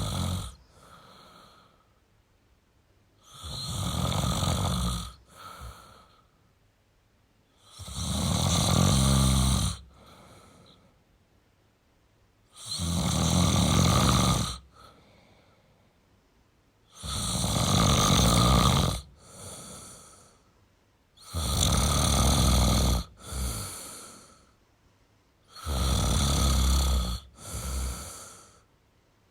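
A man snoring steadily in deep sleep: a loud snore on each breath in, about every four and a half seconds, each followed by a shorter, softer breath out.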